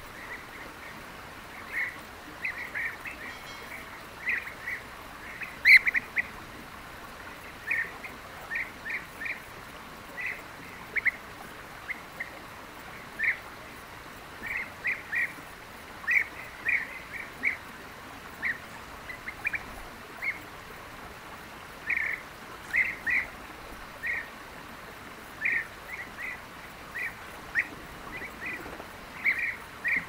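Several European bee-eaters calling: short calls scattered irregularly throughout, often in quick clusters of two or three.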